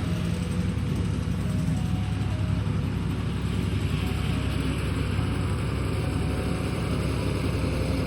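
John Deere tractor engine running steadily while pulling a land plane to level ground.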